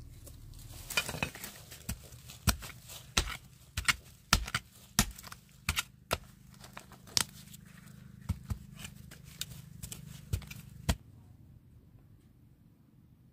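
A series of irregular sharp clicks and knocks, about fifteen over ten seconds, over a low steady hum. Both stop abruptly about eleven seconds in.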